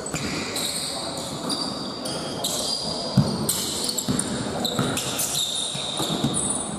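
Indoor court game in a gym: sneakers squeaking on the floor and a ball bouncing, with players' voices and the hall's echo.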